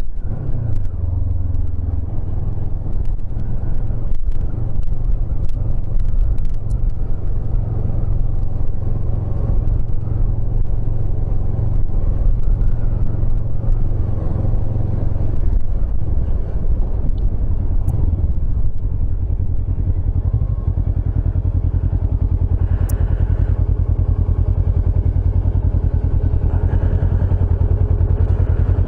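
Motorcycle engine running as the bike is ridden, its note shifting about halfway through and then settling into a steady beat.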